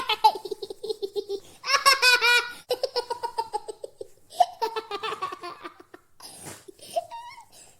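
A male toddler laughing while being tickled: quick giggling pulses in bursts, with a higher, louder run of laughs about two seconds in.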